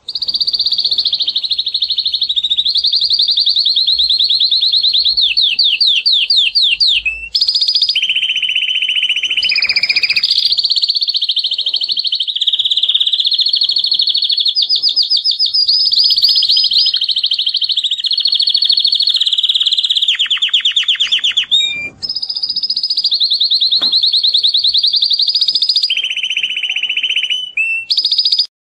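Male domestic canary in full breeding song, singing a long, loud, nearly unbroken song of rapid trills. It switches from one trilled phrase to the next every few seconds, with brief breaks about 7 and 22 seconds in, and the song cuts off abruptly at the end.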